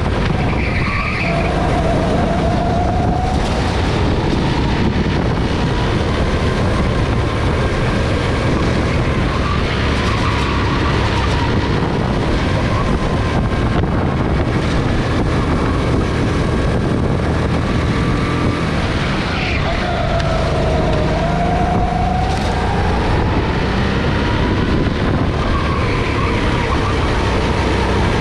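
Go-kart engine running hard, its pitch rising and falling as the driver gets on and off the throttle through the corners, over a steady rush of noise.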